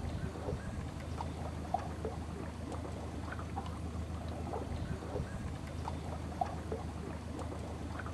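Shallow forest stream trickling and gurgling over rock shelves: a steady rush dotted with many small, irregular bubbling notes, over a low steady hum.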